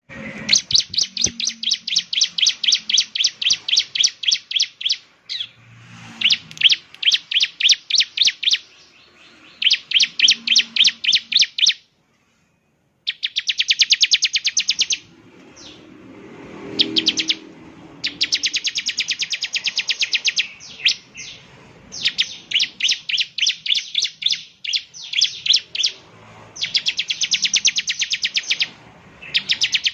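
Bar-winged prinia (ciblek) singing: fast runs of sharp, high, rapidly repeated chirps in bursts of a few seconds each, with a short total silence about twelve seconds in.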